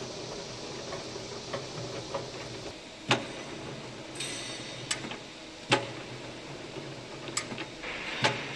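Factory workshop ambience: a steady low machine hum with sharp metallic clicks and knocks at uneven intervals, the loudest about three seconds and five and a half seconds in, and a short hiss just after four seconds.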